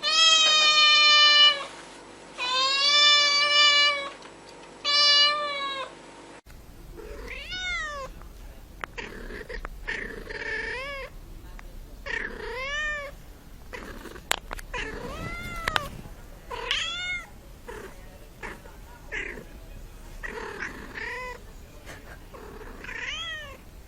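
Domestic cat meowing: three long, loud, drawn-out meows, then, about six seconds in, a quieter series of short, high kitten mews that rise and fall, roughly one a second.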